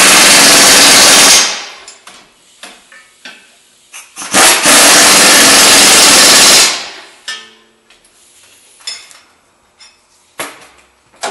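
Pneumatic impact wrench running in two loud bursts of about two seconds each, driving the nuts onto the front strut's lower mounting bolts. A few light clicks and knocks follow.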